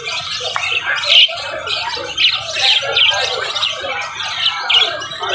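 Many caged birds chirping and squawking at once, a dense, unbroken chatter of short high calls overlapping each other.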